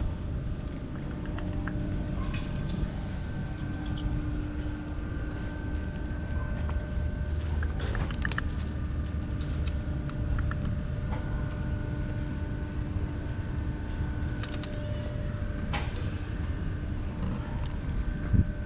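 A motor or engine running steadily with a low rumble and a few held tones, with scattered clicks and knocks.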